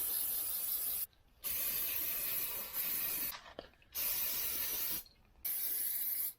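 Four bursts of pressurized spray hissing, each lasting about one to two seconds with short pauses between them, used to clean a part during the Ford 429 big-block engine teardown.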